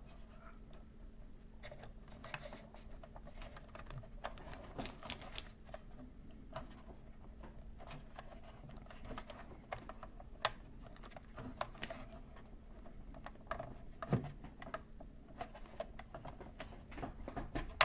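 Irregular small clicks, taps and rattles of hard plastic as a Star Wars A-wing toy ship and its action-figure pilot are handled, with a slightly louder knock about fourteen seconds in, over a faint steady hum.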